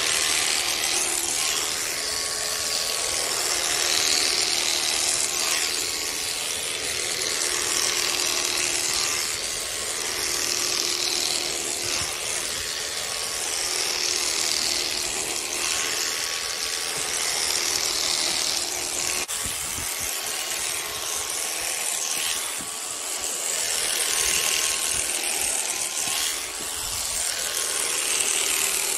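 Electric shearing clippers running with a steady motor hum, their blades buzzing as they cut through thick llama fleece; the cutting noise swells and eases with each pass.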